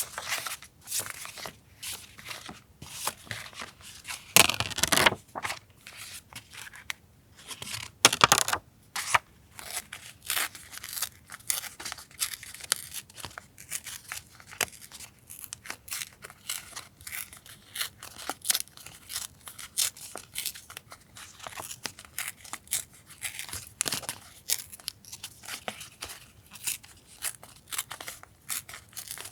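Paper being cut with scissors and handled: many quick small snips and rustles, with two louder, longer paper sounds, one about four and a half seconds in and one about eight seconds in.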